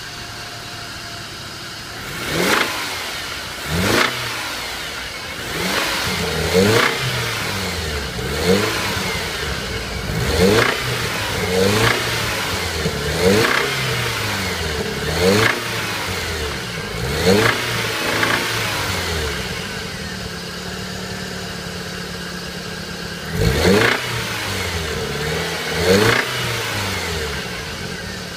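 BMW E46 316i four-cylinder petrol engine revved in about a dozen short blips, each rising and falling back to idle, with a steady idle for a few seconds before two last blips near the end. The owner reports that this engine rattles loudly at start-up and from about 2000 rpm under way.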